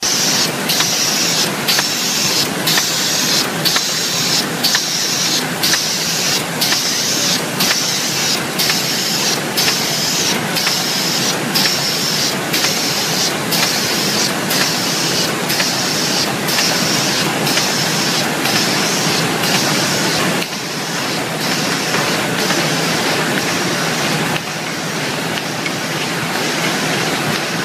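Automatic file folder making machine running: a steady mechanical clatter with a hiss that pulses regularly, about three beats every two seconds. The pulsing fades about three-quarters of the way through.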